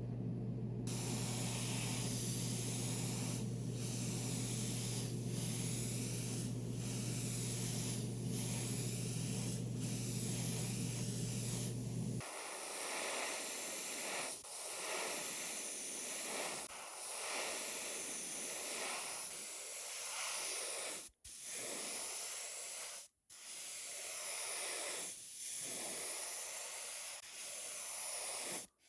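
Airbrush spraying paint with a steady hiss that swells and dips as the trigger is worked. A low steady hum runs under it for about the first twelve seconds and then stops abruptly; the hiss cuts out briefly twice near the end.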